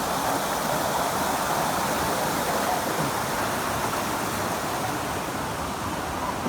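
Water rushing steadily down a rocky waterfall cascade, an even roar with no pauses.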